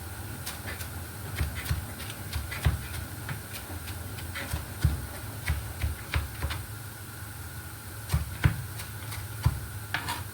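Kitchen knife chopping on a cutting board: irregular sharp knocks, some with a dull thud, over a steady low hum.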